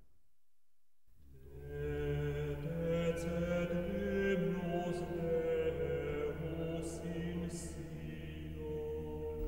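Slow soundtrack music with sustained, chant-like voices over a low drone, swelling in out of silence about a second in.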